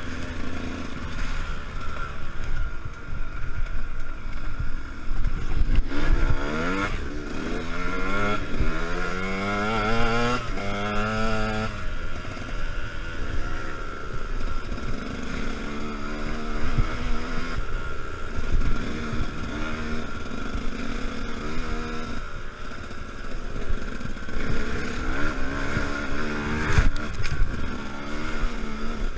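Enduro dirt bike engine running on a trail ride. It revs up in several rising sweeps through the gears about a quarter of the way in, and runs at steadier revs the rest of the time.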